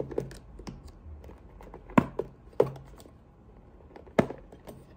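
Hard clear plastic storage box being handled, its hinged snap lids unlatched and flipped open: a run of sharp plastic clicks and knocks, the loudest about two seconds in and just after four seconds.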